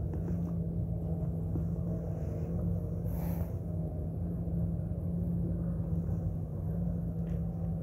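A motor running steadily, a low rumble with a constant hum. A brief hiss about three seconds in.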